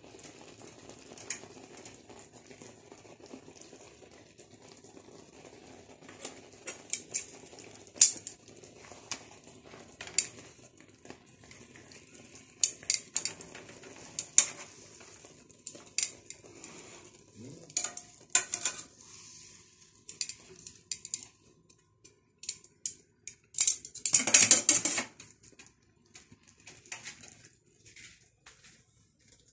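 Beef steaks frying in a nonstick pan with a faint sizzle, under repeated sharp clicks and scrapes of a metal fork against the pan as the steaks are turned. Near the end comes one louder scraping clatter lasting about a second.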